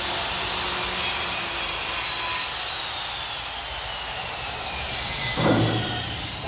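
Electric woodworking power tool running with a high whine that slowly falls in pitch over several seconds, over a steady rushing noise. A brief louder sound comes about five seconds in.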